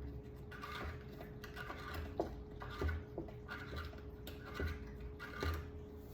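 A plastic drain-pump filter cap at the bottom of a front-loading washer being worked loose by hand: short scrapes and creaks about once a second over a steady faint hum.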